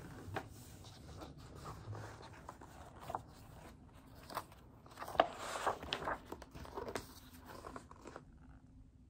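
Pages of a large picture book being handled and turned and a wide fold-out spread being opened: paper rustling and crackling, busiest in the middle with the loudest crackle about five seconds in, then quieter near the end.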